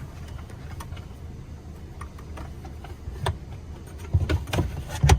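Clicks and knocks of an adjustable-height support column being handled and set under the supporting frame of a car bed platform, sparse at first and louder and quicker near the end.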